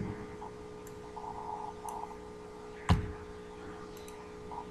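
Low steady hum of the recording room with one sharp click of a computer keyboard key about three seconds in.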